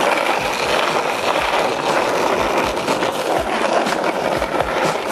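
Skateboard wheels rolling fast on asphalt: a steady rumble with short low thumps, often two close together, as the wheels cross cracks in the road.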